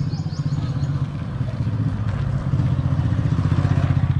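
Motorcycle engine running with a fast, even thrum, growing louder about two and a half seconds in.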